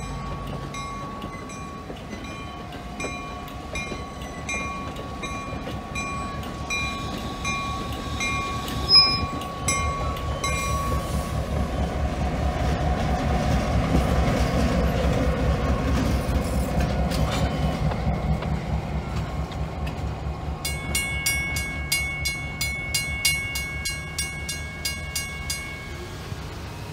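A passenger train rolling past a level crossing while the crossing bell rings steadily, with a sharp clank about nine seconds in. About halfway through, the EMD SW-series diesel switcher locomotive at the end of the train passes close, its engine running with a loud low rumble. Near the end a faster, higher-pitched crossing bell rings as the gates go up.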